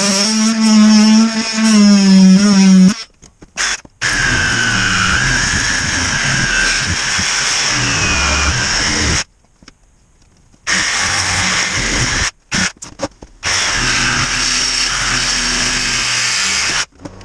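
Power saw cutting through a foam-filled tire, a whining motor sound that starts and stops abruptly several times between short stretches of cutting.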